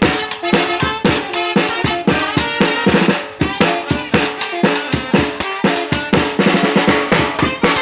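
Yucatecan charanga brass band playing: trumpet and saxophone carry the tune over a quick, steady beat on the bass drum and drums.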